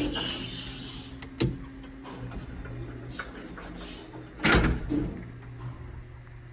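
Westinghouse traction elevator at rest between runs, with a low hum: a sharp click about a second and a half in, then a loud clunk about four and a half seconds in, with a lighter knock half a second later, typical of the elevator's doors working.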